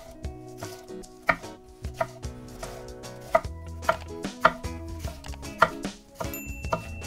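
Knife slicing a wedge of green cabbage into thin strips on a wooden cutting board: a string of crisp, irregular knocks as the blade cuts through the leaves onto the wood, a few of them sharper than the rest.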